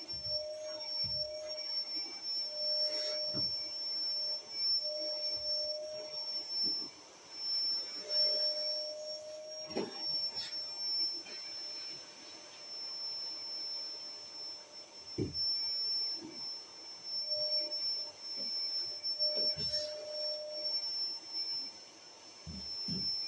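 Canister vacuum cleaner running with a steady high whine, a lower tone coming and going as the hose nozzle works the floor, and a few scattered knocks.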